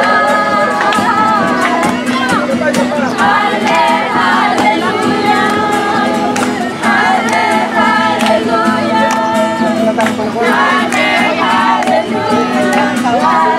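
A group singing a song together to an acoustic guitar.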